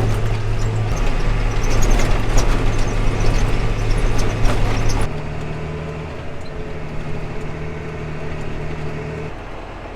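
Tractor engine running under way, towing a chaser bin, with a steady hum and a clatter of rattles and knocks from a rough, teeth-chattering ride. About five seconds in the sound changes abruptly to a quieter, steadier engine hum.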